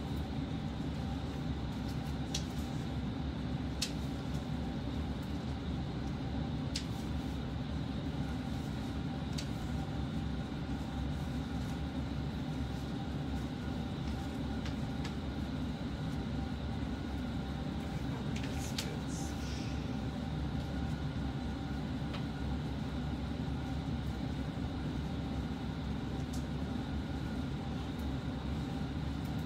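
Steady low rumble of background noise with a faint constant hum and a few faint clicks scattered through it.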